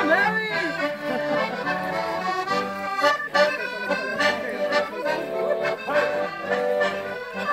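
Accordion playing a dance tune, with held melody notes over a steady bass.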